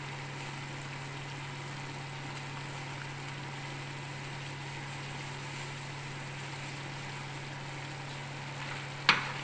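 A steady low mechanical hum over a faint even hiss in the kitchen while the pot of lamb and tomato paste cooks. Near the end, one sharp metallic knock, the metal spoon striking the aluminium pot.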